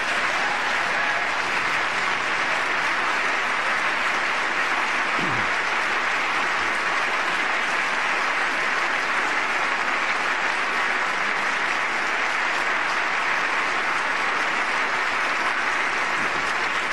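Members of Congress applauding at length, a steady clapping that dies away near the end.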